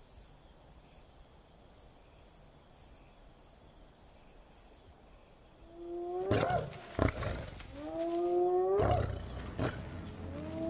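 Crickets chirping in an even pulse, then, from about six seconds in, spotted hyenas calling: several loud whoops that rise in pitch, with a few sharp knocks among them.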